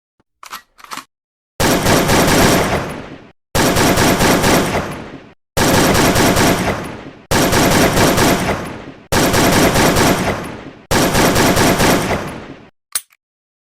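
Automatic gunfire: six bursts of rapid shots, each lasting under two seconds and about two seconds apart, with a few short clicks before the first burst and after the last.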